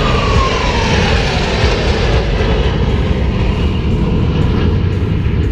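Blue Angels' formation of F/A-18 Hornet jets flying past low: a loud, steady jet roar, with a whine that falls in pitch over the first two or three seconds as the jets pass and move away.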